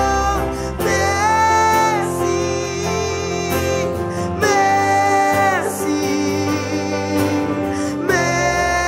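Live worship song: a woman singing long, held phrases with vibrato, about three in a row, over acoustic guitar and electric keyboard.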